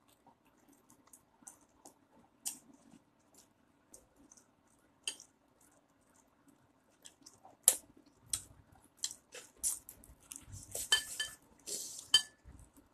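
Kitten chewing and crunching a crisp treat held in a hand: scattered small crunches and clicks. They grow denser and louder past the middle, then stop near the end.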